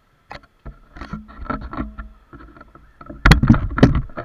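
Knocks, bumps and rubbing on the camera body as it is handled or jolted on its mount, in a quick irregular run, loudest about three seconds in.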